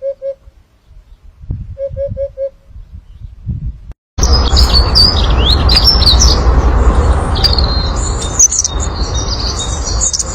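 Birds chirping busily, many quick high calls and sweeping notes over a loud steady rumble, starting after an abrupt cut about four seconds in. Before the cut, two groups of four short, evenly spaced low hoots.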